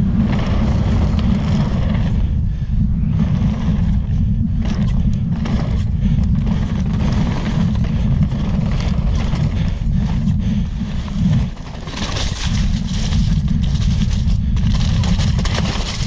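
Wind rushing over the camera microphone of a chainless mountain bike descending a dirt trail, with the tyres rolling over loose dirt and short knocks and rattles from the bike over bumps. The noise dips briefly about two-thirds of the way through, then comes back with more hiss.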